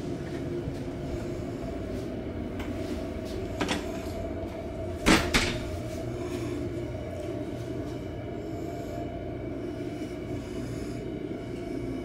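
A wooden door being handled: two sharp knocks about five seconds in, with a fainter click a little before, over a steady low hum.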